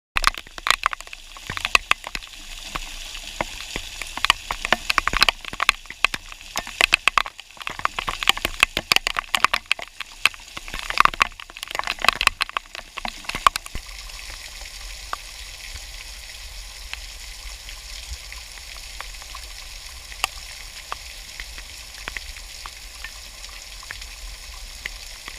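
Heavy tropical rain, with many loud, sharp drop impacts crackling over a hiss. About halfway through it changes abruptly to a steadier, softer hiss with only occasional drips.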